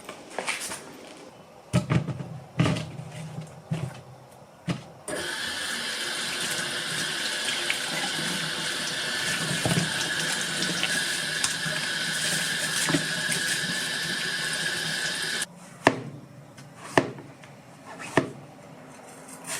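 Kitchen tap running into a sink for about ten seconds, starting and stopping abruptly. Clicks and knocks of handling come before and after.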